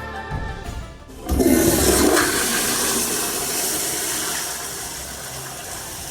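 Commercial flush-valve toilet fixture flushing: a sudden loud rush of water about a second in that slowly tapers off.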